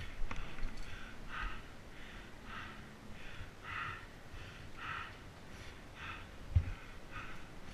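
A mountain biker breathing hard while riding, about one breath a second. There is a single dull thump from the bike about two-thirds of the way through.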